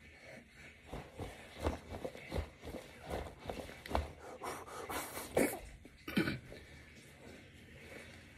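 Heavy breathing from a man doing weighted push-ups: a run of sharp, uneven exhales. About six seconds in comes a louder voiced gasp as he stops.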